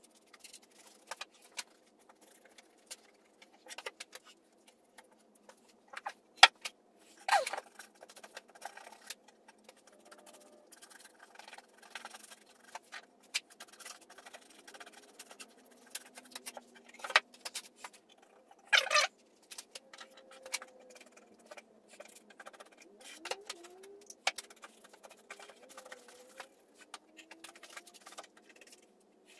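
Scattered light clicks, knocks and scrapes of a paintbrush and wooden stair boxes being handled while the boxes are brushed with paint, with a few louder knocks and scrapes about six to seven and seventeen to nineteen seconds in.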